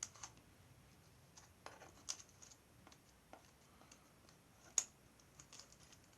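Light, irregular clicks and scratches of a thin mylar spider leg and card mount being handled as the leg is pushed through a hole in the mount board, with one sharper click about five seconds in.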